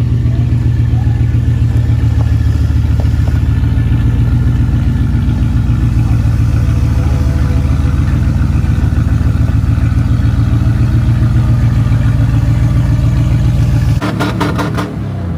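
Truck engine running steadily, a deep even rumble with a fast regular pulse; it drops away abruptly near the end, with a few quick clicks.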